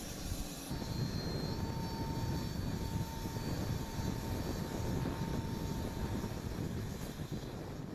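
Aircraft engine noise: a steady rumble with a faint, steady high whine over it.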